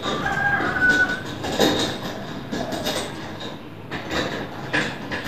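Metal scissor-arm microphone stand being fitted and clamped to a table edge by hand: irregular knocks, rattles and scrapes, with a short squeak in the first second.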